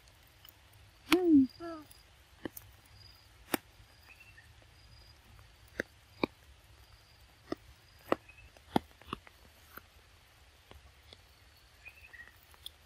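A young macaque gives one short, wavering call about a second in. After it come a dozen or so scattered sharp clicks as it bites and chews a firm green fruit.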